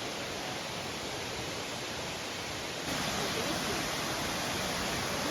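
Waterfall's rushing water, a steady even noise that jumps louder about three seconds in.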